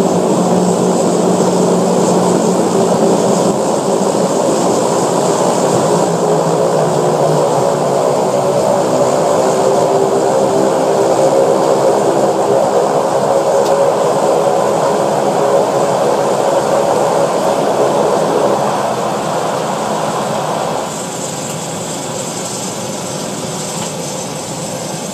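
A Cessna 208 Caravan's Pratt & Whitney PT6A turboprop engine and propeller droning steadily, heard from inside the cabin as the plane rolls out and taxis after landing. The drone drops to a quieter level near the end as power comes back.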